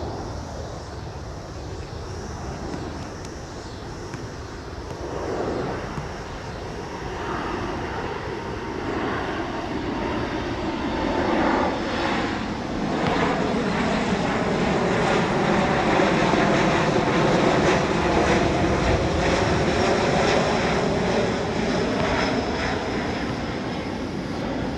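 Jet airliner's engines passing close by, growing louder to a peak in the second half, with tones sweeping down and up as it goes past.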